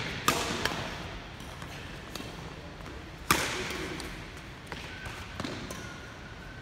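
Badminton rackets striking a shuttlecock in a rally, sharp cracks that echo around a large gym: two close together near the start, the loudest about three seconds in, then a few lighter ones.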